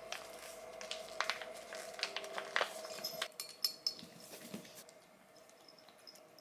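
Wet cat food being squeezed out of a plastic pouch into a ceramic bowl: crinkling of the pouch and small squelches and clicks, over a faint steady hum. After about three seconds it drops to a quieter stretch with a few scattered clicks.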